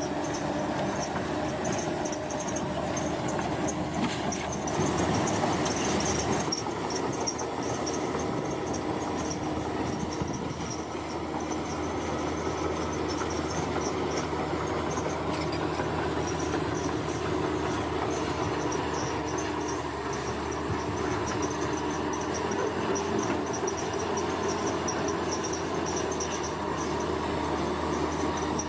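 Bulldozer working: its diesel engine runs steadily under rattling, metallic track noise, a little louder about five seconds in. A high, pulsing insect chirring runs over it.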